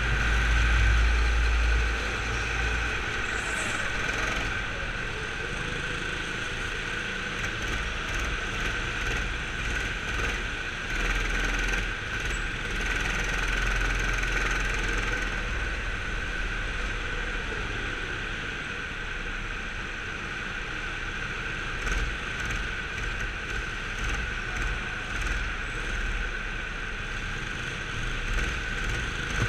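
Go-kart heard from on board, its motor running steadily with a constant whine over a low rumble. It eases somewhat for a few seconds past the middle.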